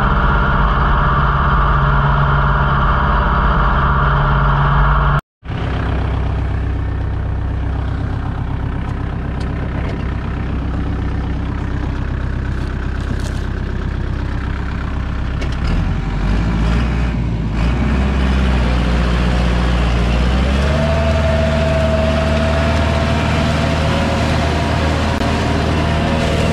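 Kubota L5018 tractor's four-cylinder diesel engine running steadily under load while driving a rear rotary tiller. The sound cuts out for an instant about five seconds in, and a steady whine joins in about twenty seconds in.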